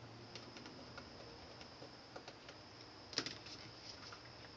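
Pencil tip marking circles on leather through holes in a kydex holster shell: faint, scattered light ticks and scratches, with a sharper click about three seconds in.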